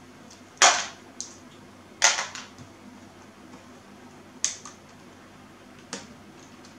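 Round typewriter-style keycaps of an Azio Retro Classic mechanical keyboard being pulled off their switches one by one: four sharp plastic snaps every second or two, the first and third each followed by a lighter click.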